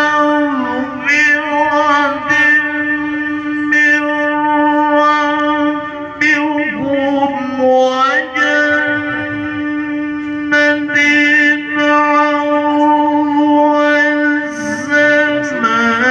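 A qari's male voice reciting the Quran in the melodic tilawah style through a handheld microphone. He holds long notes and breaks into wavering, ornamented turns between them.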